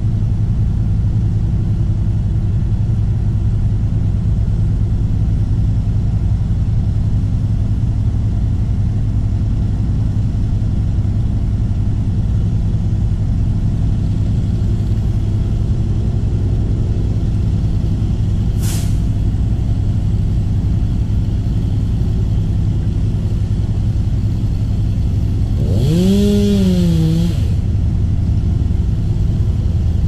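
A large engine running steadily at a low, even pitch. Near the end it briefly rises and falls in pitch with a burst of hiss.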